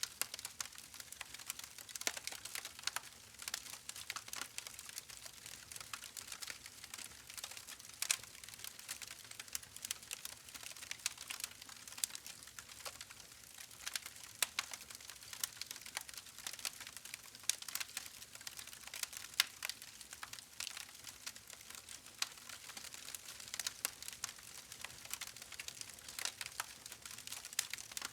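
Campfire crackling: dense, irregular pops and snaps of burning wood over a soft hiss.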